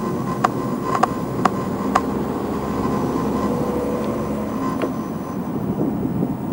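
A mallet or hammer striking with a ringing, metallic knock about twice a second, stopping about two seconds in, over the steady rumble of street traffic.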